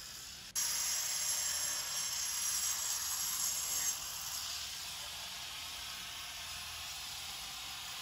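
Angle grinder with an abrasive disc cutting through terracotta roof tiles: a steady gritty hiss that starts suddenly about half a second in and drops a little in level about four seconds in.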